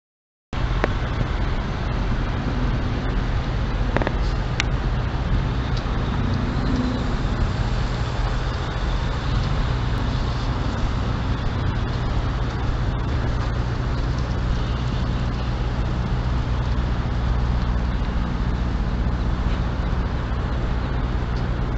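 Diesel semi-truck engines running with a steady low rumble.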